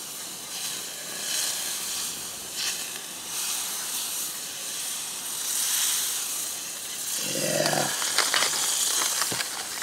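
Butter sizzling and hissing in a very hot stainless-steel fry pan on a portable gas stove as it is swirled around the pan. A brief voice sound comes about seven seconds in, followed by a few light clicks near the end.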